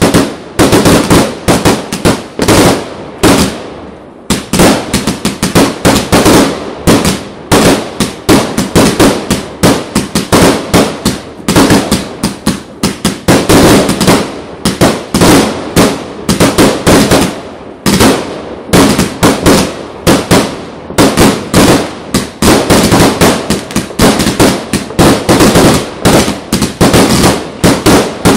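Aerial fireworks going off in a rapid, near-continuous string of loud bangs, with a few short lulls.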